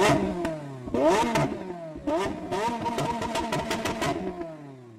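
An engine revving about three times in quick succession, each rev rising sharply in pitch, then the engine runs down with falling pitch near the end.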